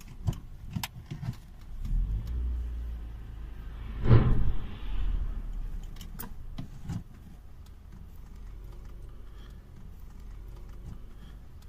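A filling station explosion: one loud boom about four seconds in that dies away over a second or so. Under it runs a steady low rumble, with scattered knocks.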